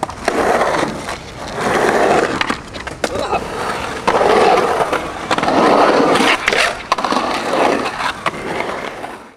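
Skateboard wheels rolling and carving on rough concrete banks: a gritty rolling roar that swells and fades with each carve, with sharp clicks and knocks from the board. The sound cuts off suddenly at the end.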